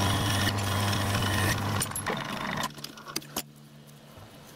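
Metal lathe running under cut with a steady hum, dropping away to a much quieter hum about two and a half seconds in. A few light metallic clicks follow.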